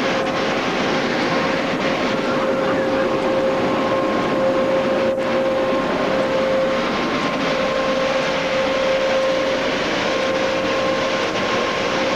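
Automatic car wash dryer blowers running: a steady rush of air with a constant high whine.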